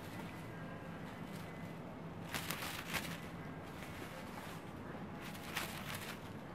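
Quiet room tone with a faint low hum, broken by a few short, soft rustles: a cluster about two and a half to three seconds in and one more near the end.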